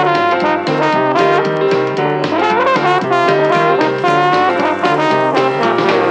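Background music: a jazz tune played by brass horns, with many short notes at a steady level.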